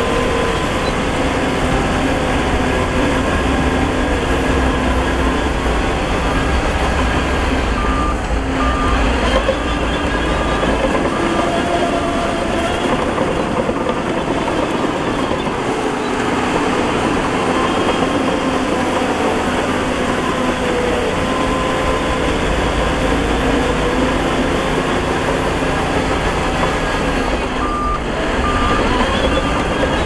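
Heavy diesel earthmoving machinery running and working. A reversing alarm sounds as a string of short beeps about eight seconds in, and again near the end.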